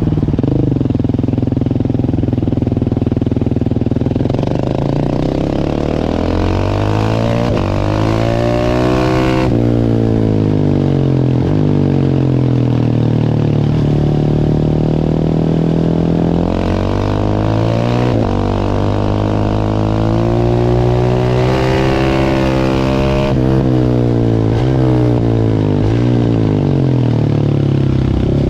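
Large single-cylinder supermoto engine ridden hard: the note repeatedly climbs in pitch under acceleration and falls back, with sudden drops as the throttle closes, one about nine and a half seconds in and another near the end.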